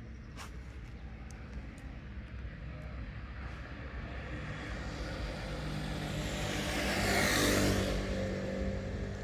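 A motor vehicle passes by: its engine and road noise grow louder over several seconds, peak about seven seconds in, then fade away.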